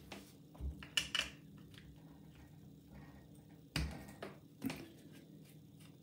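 Handling a steel-cased mortice sash lock and small hand tools: a handful of light clicks and knocks, the loudest about four seconds in.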